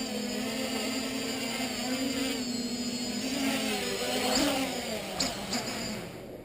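Small quadcopter's electric motors and propellers buzzing in flight, the pitch shifting as the throttle changes. About five seconds in there are a couple of sharp clicks, then the motor buzz dies away as the quad powers down.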